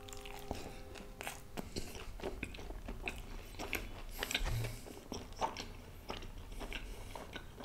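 Close-miked chewing of a mouthful of naan with butter chicken gravy: a steady run of small wet clicks and smacks. A low thump about four and a half seconds in.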